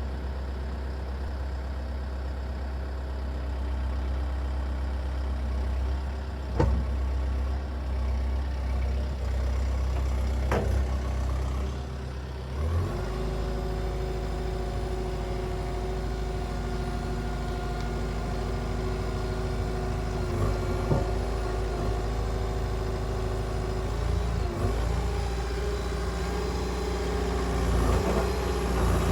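Diesel engine of a compact construction machine running steadily, with two sharp knocks in the first half. About halfway through, the engine speeds up and holds a higher, stronger note.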